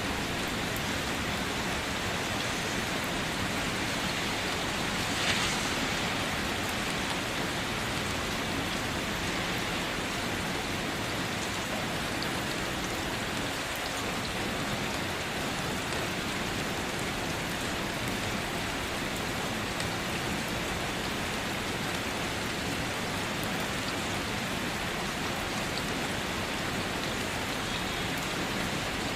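Steady rain drumming on a car, a dense even patter of drops, with one brief louder splash or tap about five seconds in.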